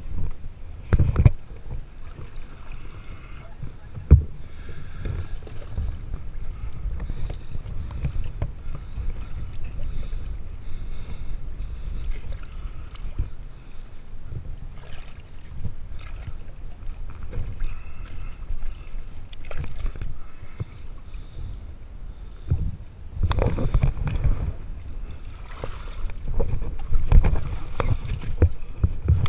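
Water sloshing and splashing around a half-sunken fibreglass sailboat's hull as someone works along it in the water, with sharp knocks now and then and busier splashing near the end.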